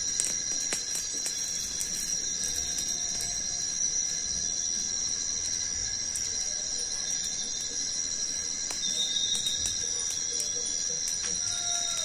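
Tropical rainforest insects droning in steady high-pitched tones, some pulsing, with scattered faint crackles from a small wood campfire.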